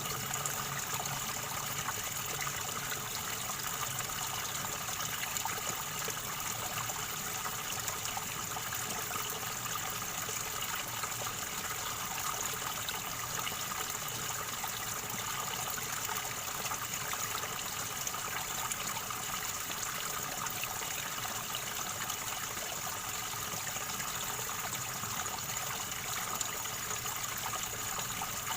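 River water flowing and gurgling over stones, a steady, unbroken rush.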